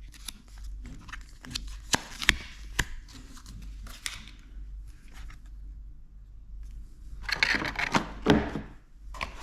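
A Ring video doorbell and its packaging being handled: scattered light clicks and taps, then a louder burst of packaging rustling and crinkling with a few sharp knocks about seven to eight seconds in.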